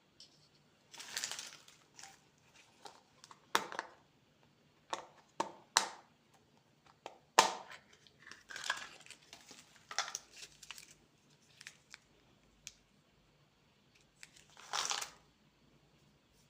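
Plastic candy wrappers being handled and opened: irregular crinkling and rustling in short bursts, with one sharper crackle about halfway through.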